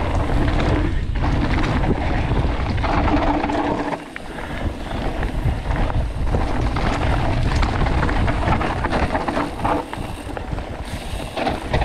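Wind buffeting the camera microphone of a mountain bike riding downhill on a dirt forest trail, with the rumble of the tyres and the bike rattling over roots and bumps. The rumble eases briefly about four seconds in.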